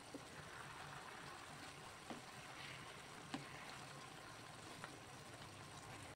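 Chicken adobo sauce simmering in a frying pan: a faint, steady bubbling, broken four times by a light click of a ladle against the pan.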